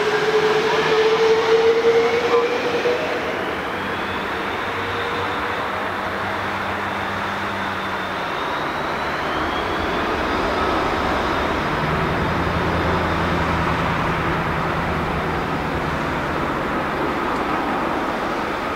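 Boeing 747-400's four Rolls-Royce RB211 turbofans at takeoff thrust during the takeoff roll: a loud jet roar with a fan whine rising in pitch. It is loudest in the first few seconds as the jet passes, then holds steady as it draws away.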